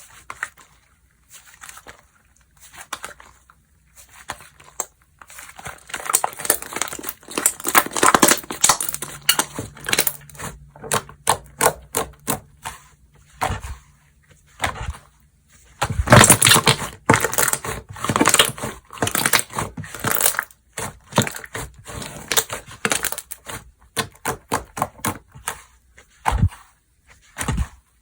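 Hands kneading and stretching slime, making quick wet clicks and crackles. These are sparse at first and come thick and fast from about six seconds in.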